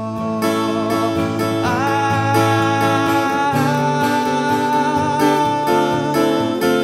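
A man singing over a strummed acoustic guitar; his voice slides up about two seconds in and then holds one long high note.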